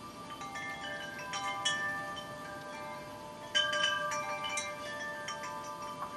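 Chimes ringing: irregular strikes of several metal notes that hang and overlap, with a denser cluster about a second and a half in and the loudest flurry at about three and a half seconds.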